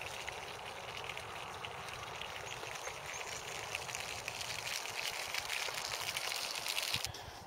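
Pork sausages sizzling in a pan on a gas stove: a steady crackling hiss that cuts off suddenly about seven seconds in.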